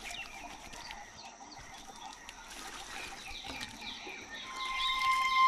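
Small birds chirping over and over, with water running and splashing into a plastic bucket. Background music fades in about a second before the end with a held note.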